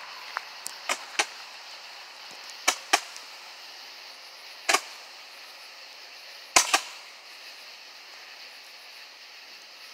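Roman candles firing: about eight sharp pops at uneven intervals, with the loudest pair near the end.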